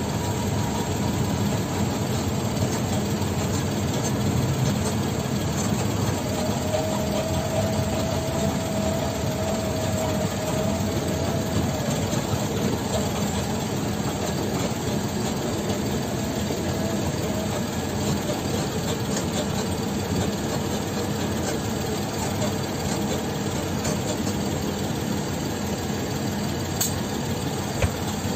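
Dump truck's diesel engine running under load while driving on a rough dirt haul road, heard from inside the cab with a steady clatter of rattles. A faint steady whine comes in for several seconds near the middle.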